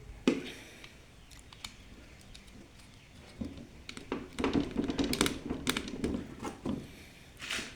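Light clicks, taps and rustling of electrical wire being handled and fitted to wall-switch terminals. Most of it comes in the second half, with a short scrape near the end.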